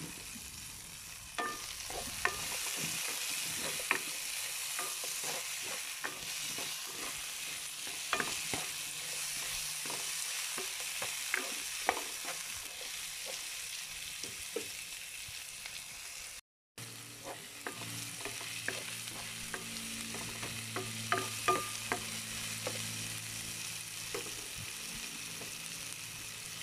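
Red onion, garlic and tomato sizzling in oil in a nonstick frying pan as they are sautéed and stirred, with frequent light clicks and scrapes of the utensil against the pan. The sound drops out for a moment a little past halfway.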